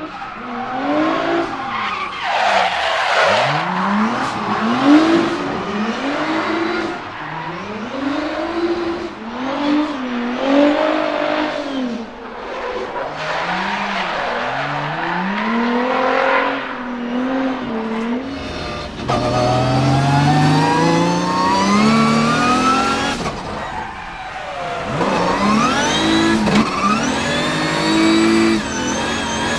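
A Nissan 200SX S13 drift car with a swapped-in VR38DETT 3.8-litre twin-turbo V6 revs up and down again and again through a drift, with tyres squealing. After a sudden change about 18 seconds in, the engine note climbs steadily through the revs in longer pulls.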